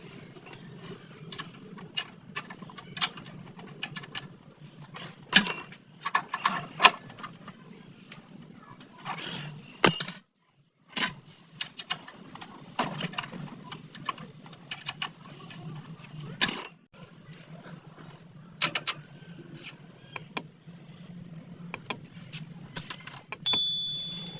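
Metal tools and parts clinking and knocking at irregular intervals during hands-on motorcycle repair work, with a few louder ringing metal strikes, over a low steady hum.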